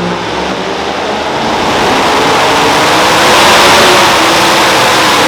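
Super modified two-wheel-drive pulling truck's engine running at full throttle down the track, very loud, its loudness building over the first few seconds and peaking about three and a half seconds in.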